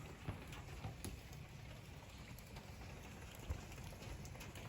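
Faint steady rain falling, with scattered drop ticks and one slightly louder tap about three and a half seconds in.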